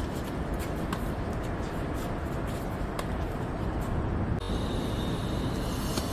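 Tennis balls struck by rackets during a doubles rally, a few sharp pops, over a steady low rumble of road traffic.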